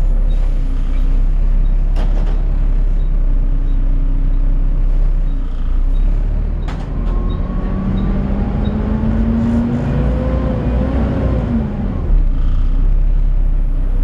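A Volvo B7TL double-decker bus heard from inside on the upper deck. Its diesel engine idles with the cooling fan running, the loud whine known as the "hoover". About seven seconds in, a rising whine builds as the bus pulls forward a short way, and it drops away again about twelve seconds in.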